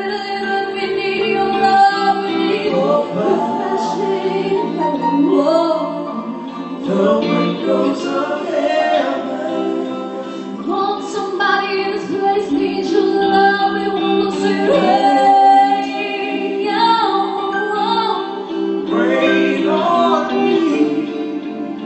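A live band playing a song: a woman sings the lead melody over sustained keyboard chords, with other voices and guitar joining in.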